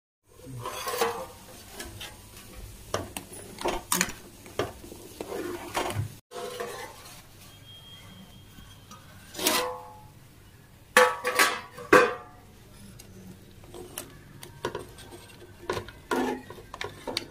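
Steel ladle and lid knocking and clinking against a steel cooking pot: a scattering of sharp metallic knocks with brief ringing, the loudest clatter about halfway through and again a couple of seconds later.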